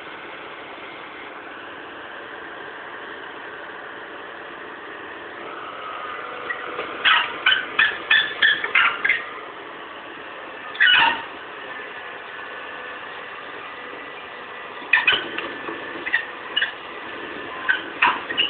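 Heavy-equipment diesel engine running steadily, with bursts of loud, sharp metallic clanks. There is a rapid cluster of them about seven seconds in, a single clank a few seconds later, and more scattered ones near the end.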